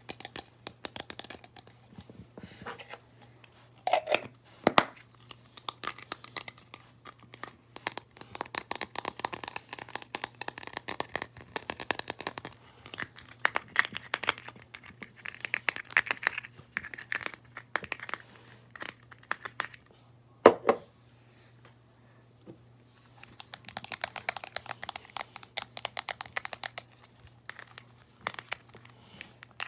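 Plastic crinkling and crackling as plastic slime tubs and a plastic bag are handled, with dense clicks and a few louder knocks. The loudest knocks come about four seconds in and a little after twenty seconds, followed by a brief quiet spell.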